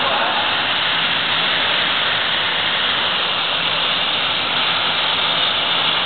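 Industrial conveyor-type parts washer running: a loud, steady rushing hiss from the machine's tunnel.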